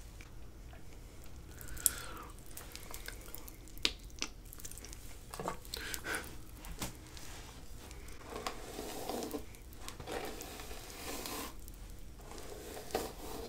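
Close-miked eating sounds: chewing and handling of a candy hairbrush, with scattered crackles and sharp clicks, the loudest about two and four seconds in.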